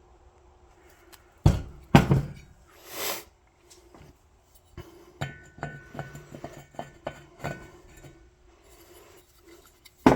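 Handling of torn-down two-stroke engine parts: two sharp knocks about a second and a half in, a brief rustle, then lighter clicks and clinks, with another knock at the end.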